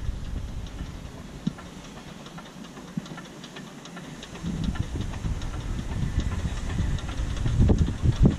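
NGG 16 Garratt articulated steam locomotive approaching, with steam hiss and faint clicking. Its rumble grows louder from about halfway through.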